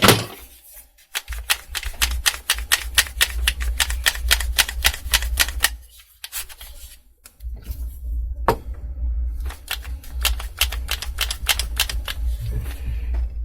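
Quick-release bar clamp being squeezed shut, its mechanism clicking rapidly at about five clicks a second, in two runs with a pause of about a second and a half between them. The repaired clamping mechanism is gripping without slipping.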